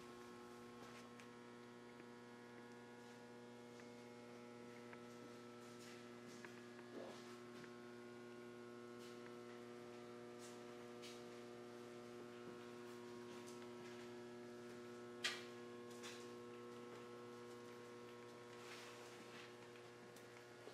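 Near silence apart from a low, steady electrical mains hum, with a single short click about three-quarters of the way through.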